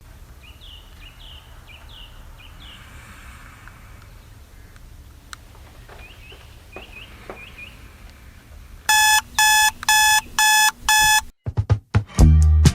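Electronic alarm clock beeping five times in a steady on-off pattern, over a low room hum with a few faint short chirps. The beeping stops abruptly and music with plucked strings starts near the end.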